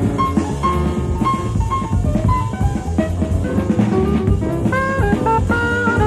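Jazz performance: an alto saxophone plays a melody of held, gliding notes over a busy drum kit, taped off an FM broadcast onto cassette.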